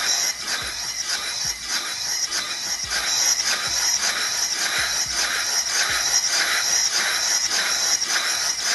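Vintage diaphragm gas meter running backwards on compressed shop air: a steady hiss of air leaking from the makeshift hose connection, over a rhythmic pulsing chatter of the slide valves and linkage as they cycle.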